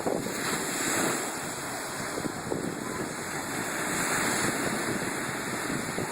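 Ocean surf washing on a beach, swelling about a second in and again around four seconds, with wind buffeting the phone's microphone.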